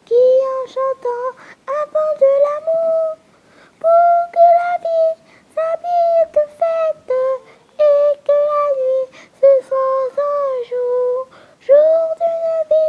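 A young girl singing a slow, gentle melody unaccompanied in a high voice: long held notes in phrases separated by short breaths.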